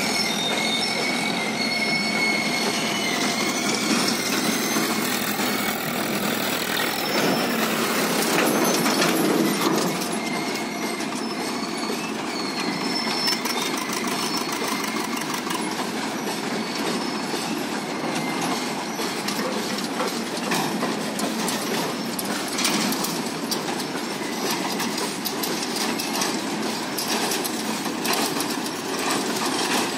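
Freight train of open steel wagons rolling steadily past, a continuous rumble and clatter of wheels on rail. A high-pitched wheel squeal rings over it in the first few seconds and comes back faintly later.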